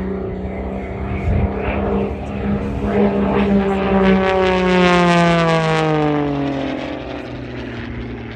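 MXS-RH aerobatic plane's propeller engine running steadily overhead. It grows louder, then about halfway through drops steadily in pitch and fades as it passes.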